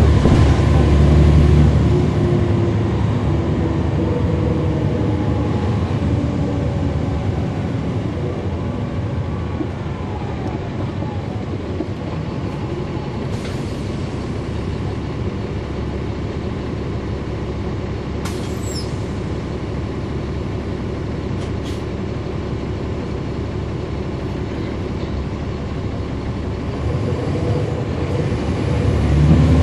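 A 2009 NABI 416.15 transit bus's Caterpillar C13 inline-six diesel heard from inside the cabin. The engine pulls hard for the first couple of seconds, then drops back and runs more quietly for a long stretch, with a few short sharp sounds in the middle. Near the end it builds again under power.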